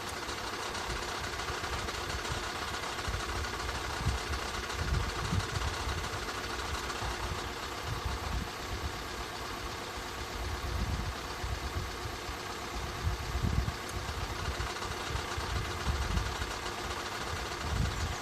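Skoda 1.6-litre 105 hp engine idling steadily, with irregular low thumps and surges underneath.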